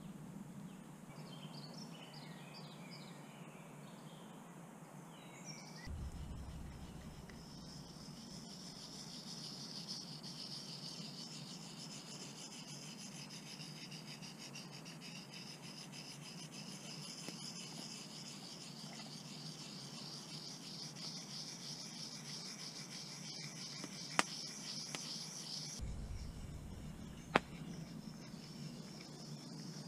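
Insects chirring steadily in a high, finely pulsed drone, with brief bird calls in the first few seconds and two sharp clicks near the end.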